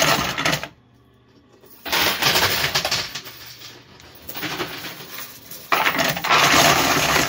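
Casino chips and quarters clattering as they spill off a coin pusher's front edge into the payout chute, in three surges of dense rattling.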